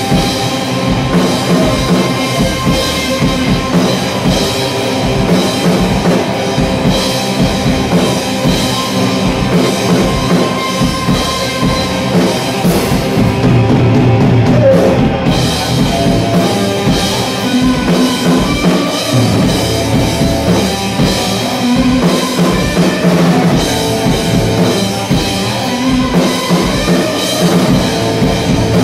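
Live heavy rock played on electric guitar and drum kit: distorted guitar riffs over a steady, driving drum beat, with no vocals.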